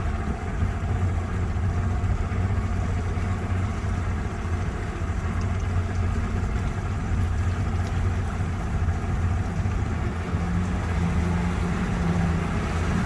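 Boat engine running steadily as the boat motors along, a deep even hum over a rushing haze of water and wind; a slightly higher hum joins about ten seconds in.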